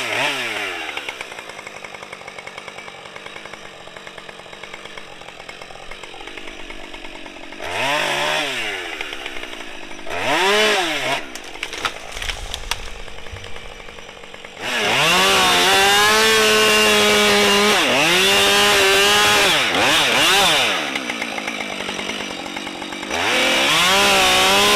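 Husqvarna 550XP two-stroke chainsaw idling, blipped twice, then held at full throttle for about six seconds as it cuts through the fallen trunk, dropping back to idle before revving up again near the end.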